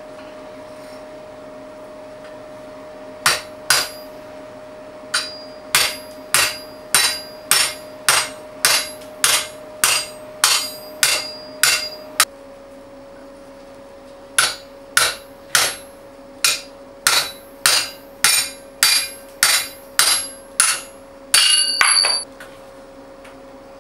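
Hammer blows on a punch driving a hole through a red-hot steel bar over a bolster plate on the anvil. The blows come in two steady runs of about two a second, with a short pause between, and end in a brief ringing flurry.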